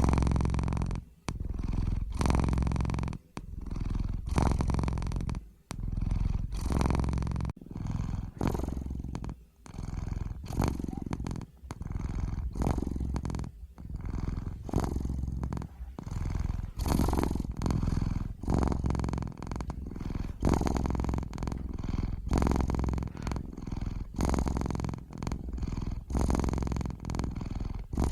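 Domestic cat purring close to the microphone, a continuous low rumble that swells and fades in steady cycles, with a short break about every two seconds between breaths.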